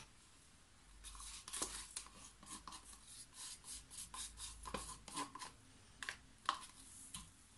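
A wooden craft stick scraping acrylic paint out of a small plastic cup: a quick run of soft scrapes and taps, with two sharper taps near the end.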